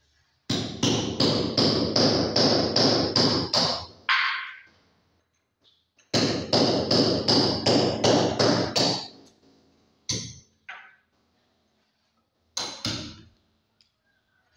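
Hammer blows on a masonry wall, chiselling out a recess for a flush electrical box. There are two runs of quick, ringing strikes, about three a second, and then a few single blows.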